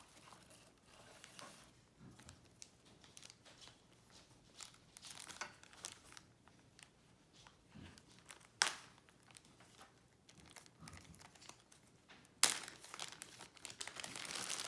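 Packaging being handled and opened by hand: scattered crinkling and rustling with some tearing, and two sharp snaps, one a little past the middle and a louder one near the end, after which the crinkling becomes steadier.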